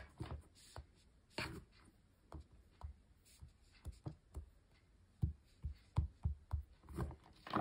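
Fingertips tapping an iPhone's screen and the phone in its TPU case being handled on a desk mat: a dozen soft, irregular taps and light knocks.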